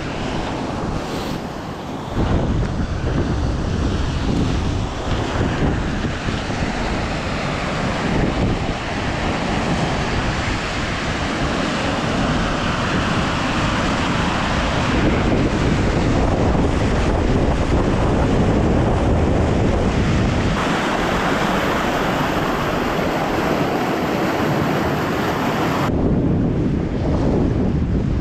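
River rapids: a steady rush of white water, with wind buffeting the microphone.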